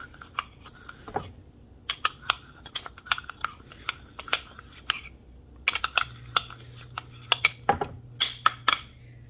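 Wooden pestle crushing red peppercorns in a small hand-held mortar: a run of sharp, irregular clicks and cracks. Near the end come a few taps as the crushed pepper is knocked out into a frying pan.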